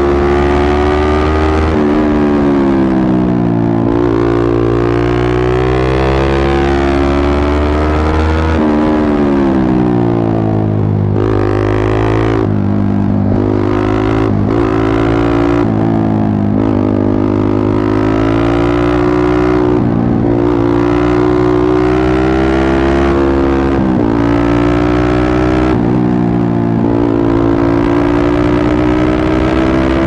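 Yamaha MT-15's single-cylinder four-stroke engine running through an aftermarket Akrapovic exhaust while ridden at speed, a loud exhaust note whose pitch rises and falls several times as the throttle is opened and rolled off.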